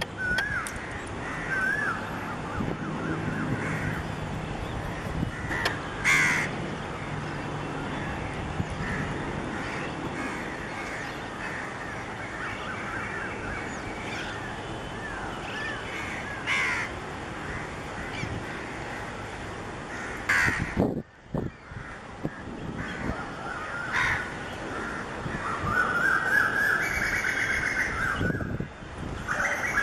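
Crows cawing, one harsh call every few seconds over steady outdoor background noise, with a faint low hum that comes in for several seconds and fades. Near the end, a run of rapid chirping and squawking from other birds.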